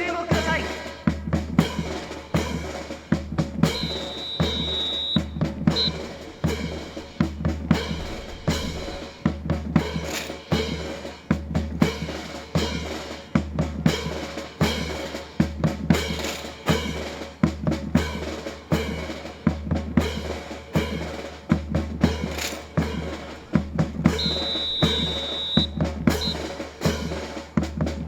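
Drum-led music with a steady marching beat of bass drum and snare. A short high tone sounds twice, once early and once near the end.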